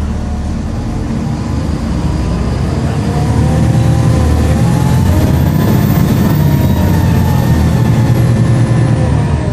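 Volvo B7LA bus's six-cylinder diesel engine pulling away through its ZF automatic gearbox, growing louder as it accelerates. A high, whiny turbo whistle rises over it and falls away near the end.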